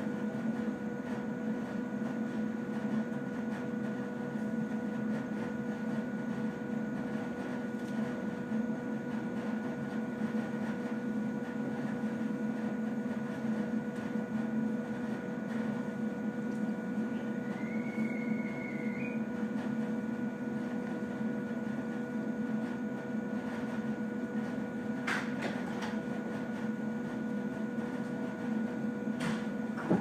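Steady hum of a 115-series electric train's onboard equipment while it stands at a station, with several steady tones. A short rising whistle-like tone about two-thirds of the way in, and two sharp clicks near the end.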